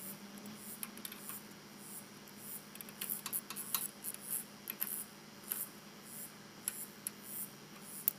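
Light handling noises from work on a go-kart's torque converter: scattered metallic clicks and taps of a hand tool against the pulley, with scratchy rustling of gloved hands. The clicks come thickest in the middle, with one sharp click near the end.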